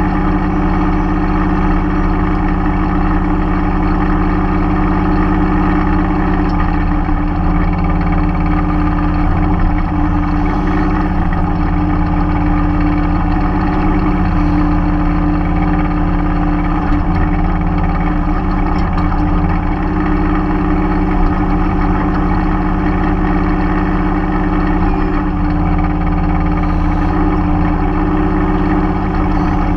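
Mahindra 3016 compact tractor's diesel engine running steadily at a constant speed, its pitch dipping slightly now and then.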